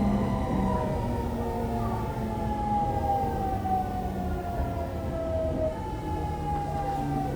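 Fukuoka City Subway 2000 series train with a Hitachi GTO-VVVF inverter, its motor and inverter whine falling steadily in pitch as the train slows under electric braking on the approach to a station, over the rumble of the wheels on the track.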